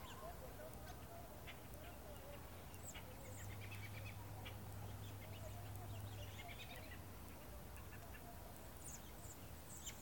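A large flock of birds calling as it passes overhead: many short, overlapping calls and chirps.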